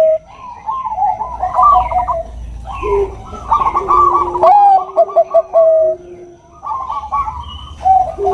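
Perkutut bangkok (Thai-bred zebra doves) singing: several phrases of rapid, pulsed coos with short gaps between them, a lower steady coo running under higher notes so that at least two birds overlap.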